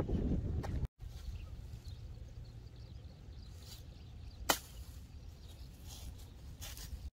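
A single sharp click of a golf club striking the ball on a short chip shot from the rough, about four and a half seconds in, over a low steady wind rumble.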